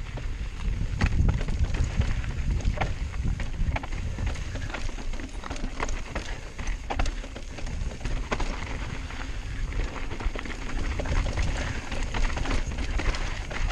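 Mountain bike riding down a rocky dirt trail: tyres rolling over loose stone, with frequent sharp knocks and rattles from the bike, over a low wind rumble on the microphone.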